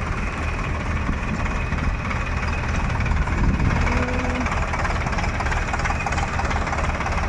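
Sonalika DI-50 RX diesel tractor engine running steadily as the tractor pulls a trailer through a wet, muddy field.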